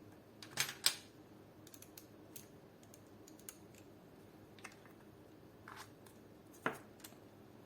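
Scattered small clicks and taps of a screw and tool against the plastic and metal parts of an airsoft AK as the polymer pistol grip is screwed on, with two louder knocks, about a second in and near the end.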